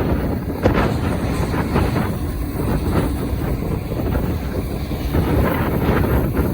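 Strong wind buffeting the microphone, a loud, gusting rumble and rush.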